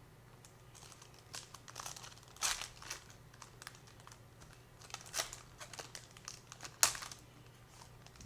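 Foil trading-card pack wrapper crinkling and tearing as it is opened, in irregular rustles with sharp crackles about two and a half, five and seven seconds in.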